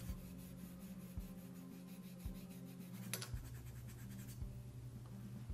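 Abrasive scuff pad rubbed quickly back and forth on the painted metal frame of a Dillon XL650 reloading press: a faint, rapid scratching that breaks the gloss coat so the light kit's adhesive will bond. The scratching stops about four and a half seconds in.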